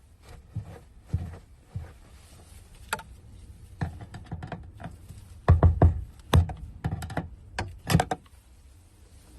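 Irregular knocks and taps on the fuel pump lock ring as it is worked loose from the tank. They come in a quick cluster about halfway through and again near the end.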